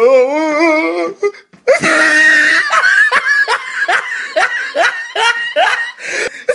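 Loud, hearty laughter: a long run of 'ha' pulses at about two a second. A short wavering, warbling voice sound comes just before it in the first second.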